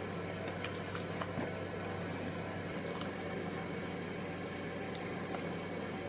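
A steady low hum and hiss, with a few faint, scattered clicks as a hooked metal dental scaler scrapes tartar off a dog's canine tooth.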